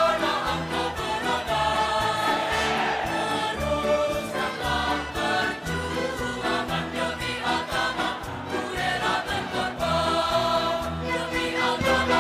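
Background music with a choir singing over a steady beat.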